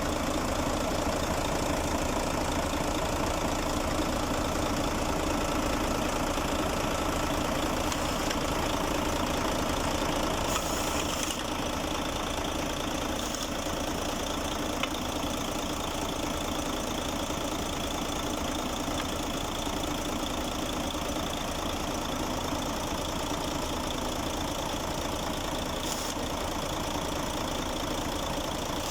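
Freshly overhauled Mercedes-Benz Actros 2040 diesel engine idling steadily, just after its first start following the rebuild.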